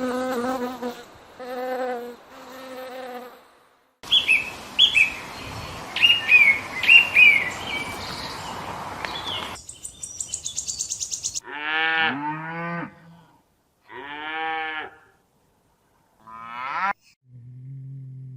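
A run of different animal sounds cut one after another. First come pitched calls, then chirping over a steady hiss, then a fast high-pitched trill, and then several drawn-out calls that bend in pitch.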